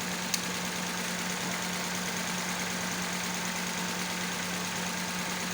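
Toyota Corolla engine idling steadily with one ignition coil pulled out, so that cylinder is not firing: a misfire. There is a single brief click about a third of a second in.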